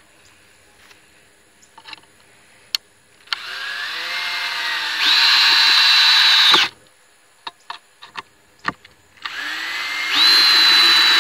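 Ryobi cordless drill driving long screws into a wooden board, in two runs. Each run starts slower with a rising whine, steps up to full speed, then stops suddenly as the screw seats. There are a few light clicks between the runs.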